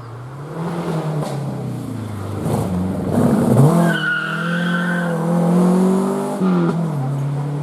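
Rally car engine revving hard, its pitch climbing and then dropping sharply twice as it changes gear or lifts off. A brief high squeal about halfway through.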